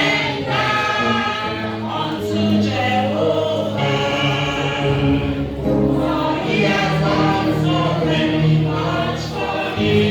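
A church choir singing a gospel song, several voices holding sustained notes over a steady bass accompaniment.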